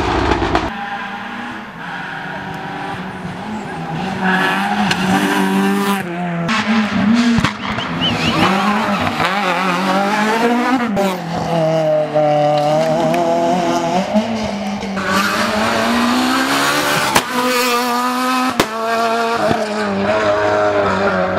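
Rally cars driven flat out, engines revving up and down through gear changes as they pass, with tyre squeal. The sound cuts abruptly several times, between one pass and the next.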